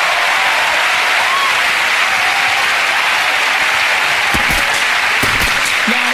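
Studio audience applauding steadily. From about four seconds in, a few sharp cracks of the pneumatic nail gun firing sound through the applause.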